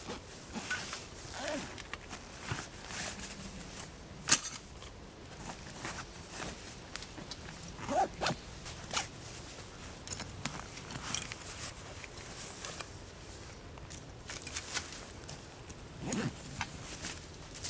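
Rustling, scraping and clicking of camping gear being handled while a tarp is set up, with footsteps on the forest floor and one sharp knock about four seconds in.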